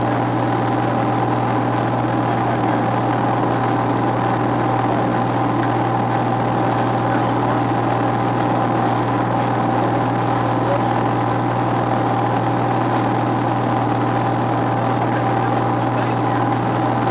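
A single-engine propeller aircraft's engine and propeller running steadily, heard from inside the cockpit: a constant low hum with a steady higher tone above it.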